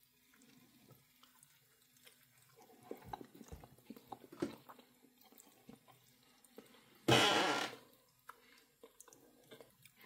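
Someone eating a bite of beef patty with barbecue sauce: faint clicks and soft mouth sounds of biting and chewing, then about seven seconds in a short, loud burst of noise lasting under a second.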